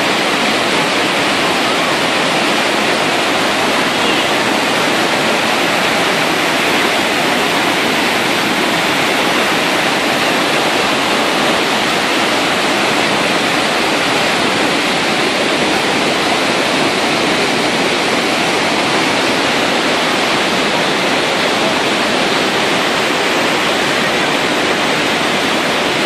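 The Devil's Throat (Garganta del Diablo) at Iguazú Falls: a massive horseshoe waterfall pouring over its lip, heard as a loud, steady rushing that never lets up.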